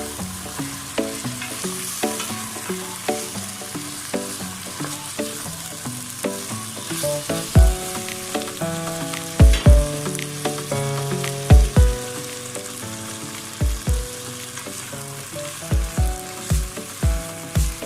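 Food sizzling and frying in a hot pan, a steady crackling hiss, with stirring. Background music runs underneath: a melody of stepping notes, with a bass drum that comes in about halfway and settles into a regular beat near the end.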